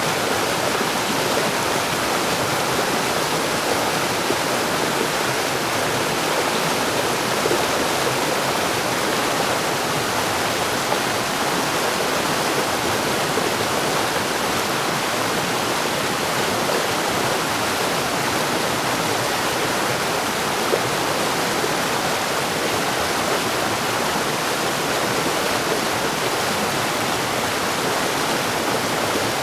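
Mountain stream: water running and splashing over rocks in a steady, unbroken rush.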